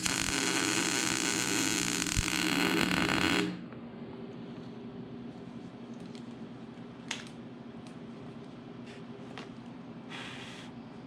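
Electric arc welder running a weld for about three and a half seconds, a steady, dense crackle over a hum, which cuts off abruptly. It is welding a nut onto a broken-off bolt so the bolt can be turned out. After it comes a low steady hum, a sharp click, and a second short burst of welding near the end.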